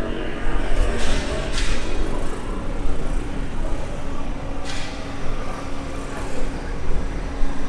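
Road vehicle running close by in street traffic: a steady low engine rumble and hum, with two short hisses about a second in and again past the middle.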